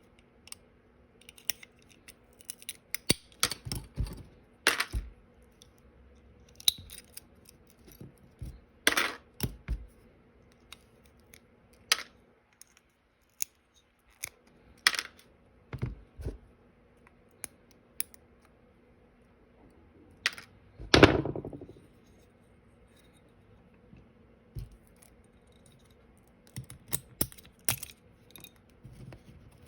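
Small, irregular clicks, taps and knocks of hand tools against a die-cast model truck cab and its small metal and plastic parts during disassembly, with one louder knock about two-thirds of the way through.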